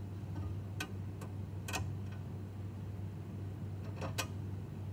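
A few light, sharp clicks of small screws and a bushing being handled and fitted against a perforated metal VEX plate, over a steady low hum.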